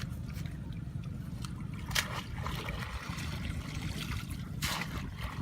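Water splashing and sloshing, with two louder splashes about two seconds in and near the end, over a steady low rumble.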